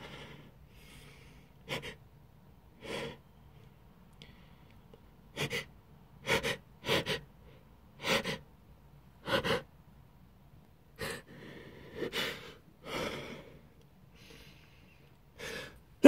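A man's short sharp breaths and gasps, about a dozen of them a second or so apart, as a sneeze brought on by inhaled ground black pepper builds up.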